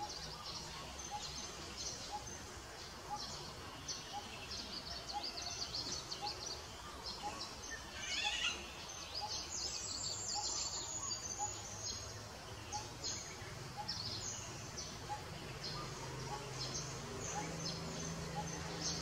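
Outdoor animal ambience: many short, high chirps and squeaks scattered throughout over a faint steady low hum, with one louder call sliding down in pitch about eight seconds in.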